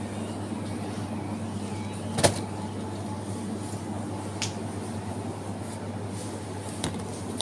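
Steady low hum of supermarket chest freezers and store air handling, with one sharp knock about two seconds in and a couple of fainter clicks later.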